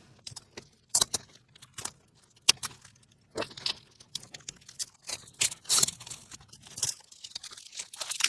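Packaging around laser-cut acrylic panels being cut open with a knife and pulled apart: scattered clicks, short scrapes and crinkling rustles.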